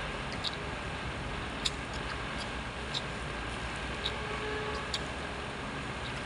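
Light sharp clicks of a plastic spoon and fork against a plate as noodles and rice are scooped up, five in all, spaced about a second apart. Under them runs a steady background noise.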